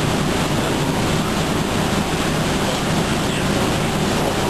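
Northstar commuter train running along the line, heard from inside the car: a steady rumble and rush of wheels on rail and moving air, with no change in level.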